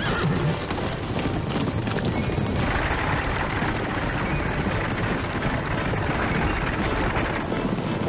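Film battle soundtrack: music under a dense, steady din of booms and crashes, growing thicker about two and a half seconds in.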